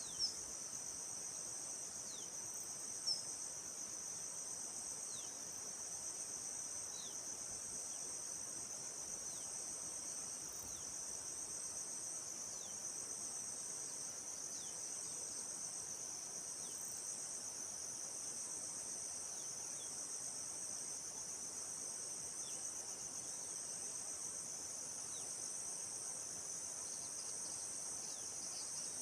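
Steady high-pitched chorus of insects with a gently pulsing upper layer, over faint forest ambience. Faint short downward-sliding calls come every couple of seconds, and two brief sharp chirps stand out in the first few seconds.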